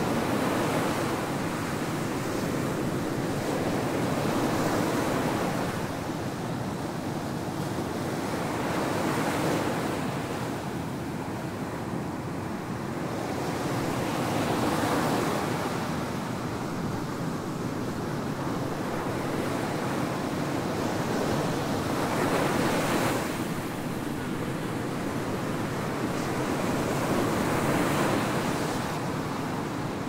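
Ocean surf breaking on a sandy beach: a steady rushing wash that swells and fades as each wave breaks and runs up the sand, every several seconds.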